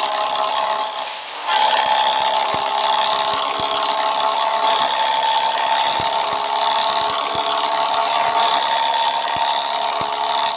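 Heavy truck running with a steady mechanical whine of several held tones over a hiss; it dips briefly about a second in and then comes back as before.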